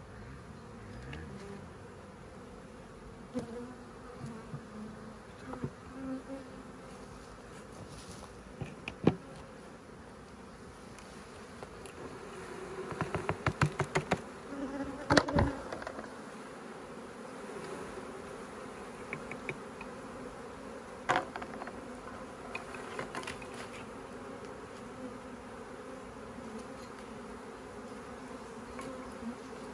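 A swarm of honeybees buzzing steadily as it is tipped into a hollow log hive. About halfway through comes a quick run of sharp knocks as the plate holding the bees is shaken and rapped over the log, with a few single knocks before and after.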